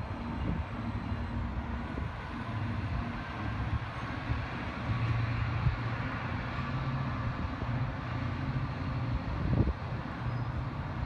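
Amtrak passenger train pulling away on the tracks below: a steady low diesel drone with the rumble of the train rolling on the rails, and one short knock near the end.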